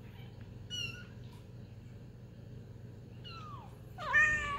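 Cats mewing: a thin, high mew about a second in, a falling mew past three seconds, and a louder, lower meow near the end.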